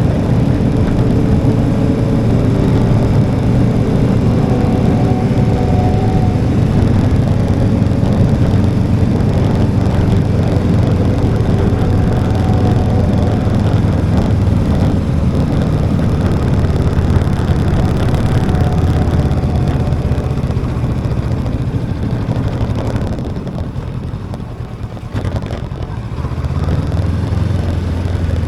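Motorcycle on the move: steady engine and wind rumble, dipping briefly about three quarters of the way through before picking up again.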